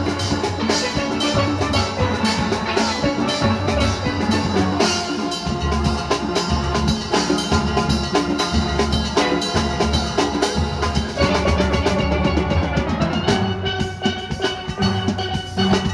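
A steel band playing: chrome lead pans carry the melody over bass pans and a drum kit, with a steady beat.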